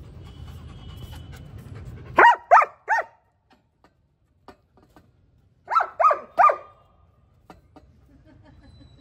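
German Shepherd barking: two quick runs of three loud barks, a few seconds apart.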